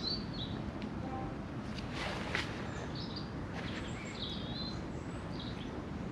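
Small woodland birds giving short high chirps over a steady background hum of outdoor noise, with a brief rustling scrape about two seconds in.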